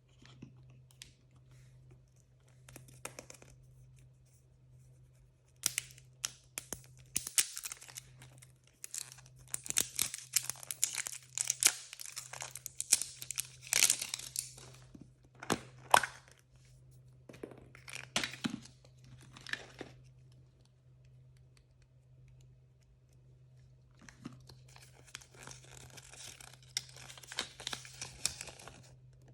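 Blind-bag toy wrappers being torn open and crinkled by hand, in irregular bursts with sharp clicks and snaps. The crinkling is densest about ten to fourteen seconds in, with a softer stretch of rustling near the end.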